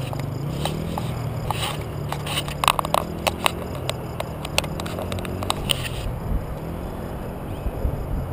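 Fingers handling a GoPro camera, a run of sharp clicks and scrapes on its housing, over the distant drone of a small dirt bike's engine riding away. About six seconds in the handling stops, leaving low wind buffets on the microphone.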